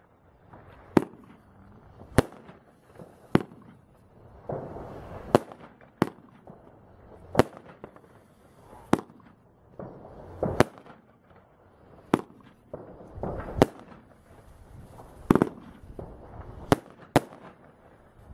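"Phosphor Panda" firework battery (cake) firing shot after shot: about a dozen sharp bangs, roughly one every second to second and a half, with a rushing noise between some of them.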